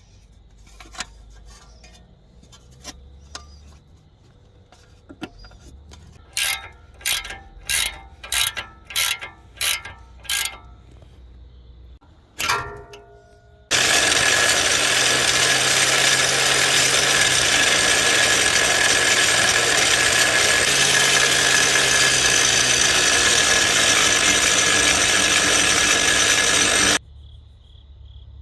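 Hand tools clicking on metal, then seven strokes about half a second apart like a ratchet wrench being worked. About halfway through, a power tool starts and runs loudly and steadily for about thirteen seconds before cutting off suddenly.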